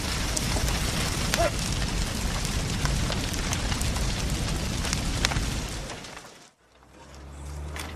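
A house fire burning, a dense roar of flames with scattered crackles and pops. It fades out about six seconds in, and a low steady hum follows.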